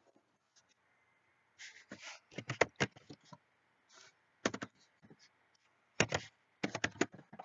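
Keys tapped on a computer keyboard: three quick runs of sharp clicks as a web address is typed in.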